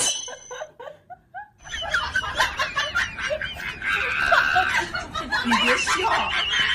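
People laughing and snickering, starting about one and a half seconds in after a short quiet spell.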